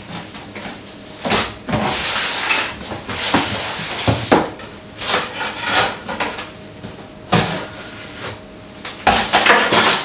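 A cardboard box being cut and pulled open with a kitchen knife: irregular scrapes, rips and rustles of tape and cardboard, with sharp knocks scattered among them.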